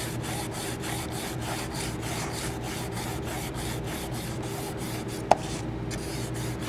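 320-grit silicon carbide abrasive paper rubbed by hand on a G-10 fiberglass strip in quick back-and-forth strokes, about three a second, dry-abrading the surface to roughen it for bonding a strain gauge. A single sharp click comes a little past five seconds in, and the strokes pause briefly just after it.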